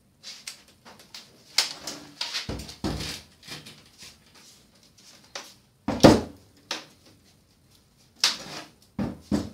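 Irregular knocks, clatter and scraping as the thin sheet-metal frame and back plate of a dismantled LED TV panel are handled and pried apart, with the sharpest knock about six seconds in.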